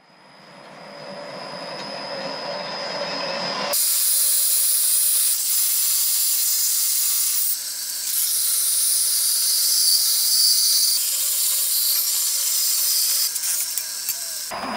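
Small bandsaw starting up, its level climbing over the first few seconds with a steady high whine. From about four seconds in, a loud high hiss as the blade cuts the knife profile out of a thin AEB-L steel blank; it stops shortly before the end.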